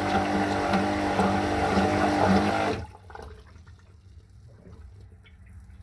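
Electric marine toilet flushing: the pump motor runs with rushing water, then cuts off sharply about three seconds in, leaving faint trickling.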